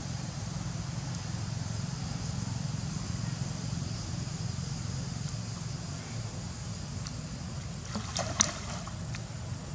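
A steady low hum of outdoor background with light water sounds from macaques wading and swimming in a shallow pond. A few short, sharp splash-like sounds come about eight seconds in, the loudest of them just before the end.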